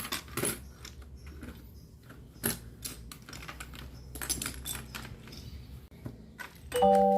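Irregular light clicks and rattles of small plastic marble run parts being handled and fitted together. Just before the end, music with xylophone-like tones starts.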